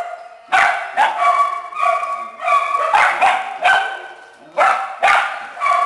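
Several small dogs and puppies in a shelter kennel barking and yipping over one another, sharp high barks about twice a second, with a short lull around four seconds in.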